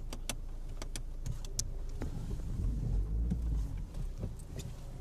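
Car cabin noise while driving on a wet road: a steady low rumble of engine and tyres, with scattered sharp clicks, most of them in the first two seconds.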